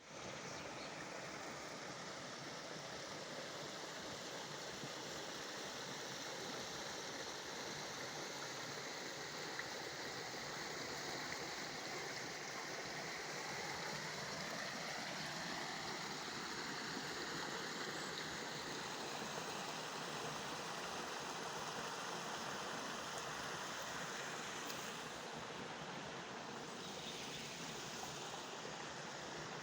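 Stream water running steadily over rocks, an even rushing noise.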